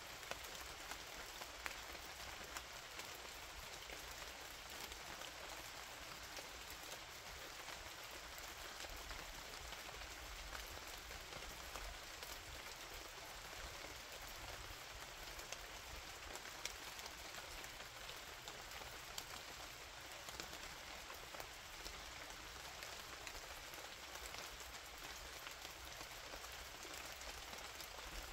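Steady rain falling, an even hiss with scattered sharper drops ticking now and then; no thunder.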